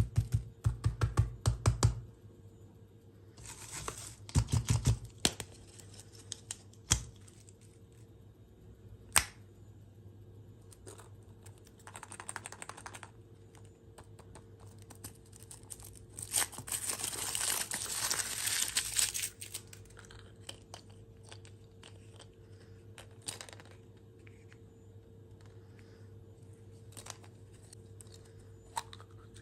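Plastic dessert and candy packaging crinkling and being torn open, with runs of quick tapping clicks near the start and a longer rustling tear a little past halfway.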